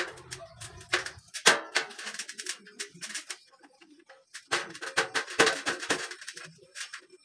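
Light-gauge steel frame profiles knocking and clattering against each other as they are fitted together: a run of sharp clicks and taps in irregular clusters.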